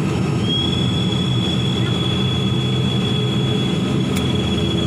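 Steady drone of an airliner's engines heard from inside the cabin. A thin, steady high whine comes in about half a second in, and there is a single sharp click near the end.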